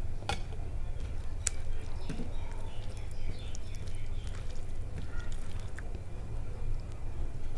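A stainless steel bowl is set down with a sharp clink just after the start. Then fingers mix rice with lentil soup on a plate, making soft squelching and small scattered clicks over a steady low hum.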